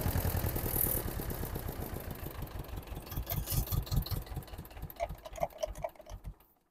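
Ursus C-330M tractor's two-cylinder diesel running as the tractor drives off, its even low beat loudest at first and then fading away as it moves off.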